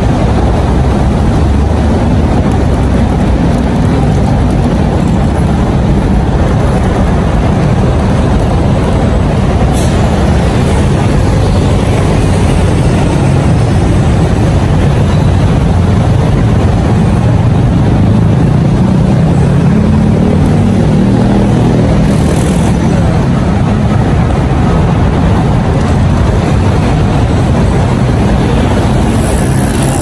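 Busy street traffic, with cars, motorbikes and heavier vehicles running close by, making a steady loud rumble. A deeper engine hum comes up around twenty seconds in.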